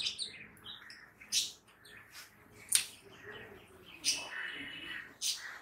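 Small birds chirping, with a few sharp clicks of plastic Connect 4 discs being handled and dropped into the grid.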